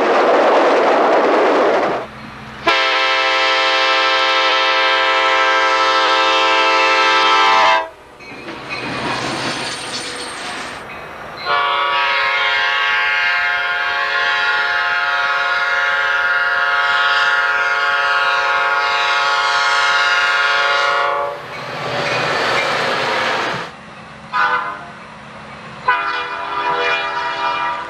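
Nathan air horns on EMD F40PH diesel locomotives sounding their chord: a blast of about five seconds, a longer one of about ten seconds, then two short blasts near the end. The rumble of the passing trains fills the gaps between them.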